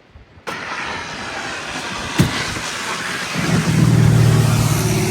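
A loud rushing noise starts abruptly, with a single sharp click about two seconds in. About three and a half seconds in, a loud, steady, low engine hum swells in and becomes the loudest sound.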